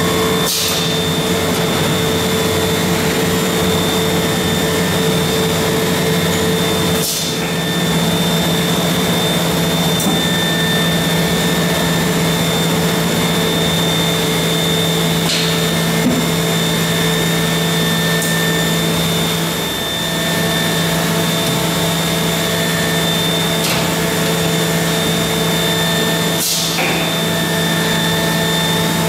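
Workshop machinery running: a steady, loud rushing hum with several held tones, broken by a few brief clicks.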